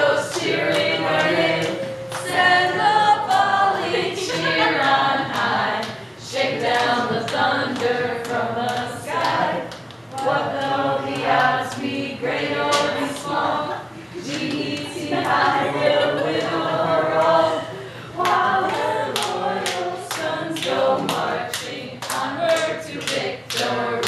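Vocal music: several voices singing together in phrases, with sharp clap-like beats running through it.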